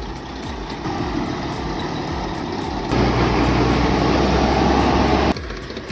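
Heavy truck engine running, growing abruptly louder about three seconds in and dropping back just as suddenly a couple of seconds later.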